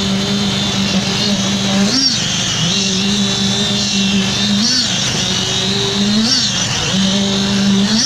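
Small petrol engine of a concrete poker vibrator running steadily at high speed, its pitch briefly rising and falling every second or two as the poker works the fresh concrete.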